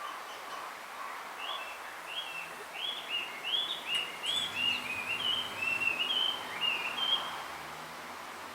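Male blue rock thrush singing: one phrase of quick, clear notes, each sliding up and down, starting about a second and a half in and lasting about six seconds, over a steady background hiss. The song of a male calling for a female.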